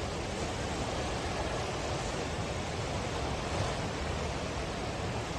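Fast floodwater rushing: a dense, steady wash of noise with no break.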